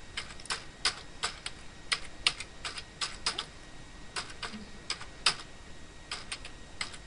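Typing on a computer keyboard: a run of keystroke clicks at an uneven pace, about three a second.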